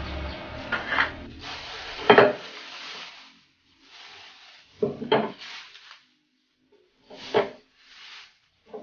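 Plastic bag and wrapping rustling while a wooden plaque is handled, with several sharp wooden knocks as pieces are set down and bumped, the loudest about two seconds in.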